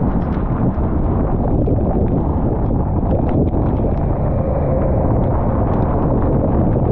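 Car driving on a wet highway: a steady, loud rumble and hiss of tyres on wet pavement and wind, with faint light ticks scattered throughout.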